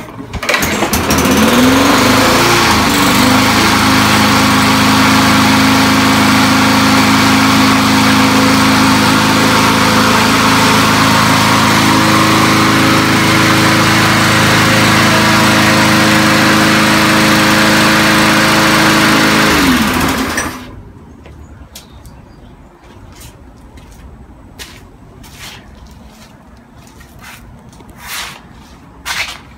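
Briggs & Stratton 158cc single-cylinder push-mower engine cold-starting from a pull of the recoil cord, revving up over a couple of seconds, then running steadily and fine. About twenty seconds in it winds down and stops, and a few light clicks follow.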